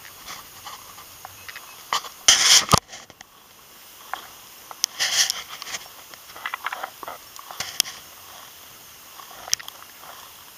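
Footsteps and legs brushing through dry crop stubble, an uneven rustling with scattered clicks, and a louder rush about two seconds in and another about five seconds in.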